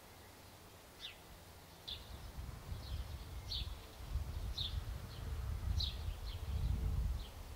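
A small bird calling with short, high, falling chirps, about one a second, starting about a second in. Under it a low rumble builds after about two seconds.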